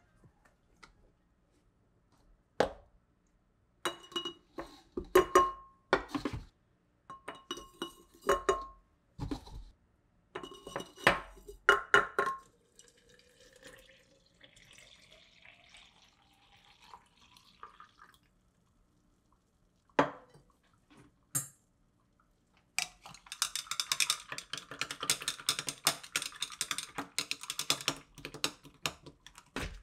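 Shake being made in a tall glass carafe. First come a few groups of ringing clinks against the glass as powder is added, then water poured in, its pitch rising as the carafe fills. Near the end comes a fast, steady clatter of a stirrer against the glass.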